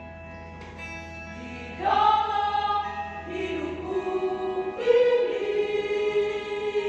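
Church choir singing held chords. The voices are soft at first, swell loudly about two seconds in, and come in strongly again about five seconds in.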